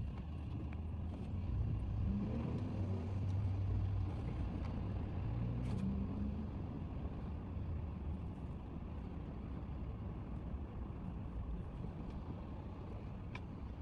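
A motor vehicle's engine running steadily with a low hum, a little louder a couple of seconds in before easing slightly.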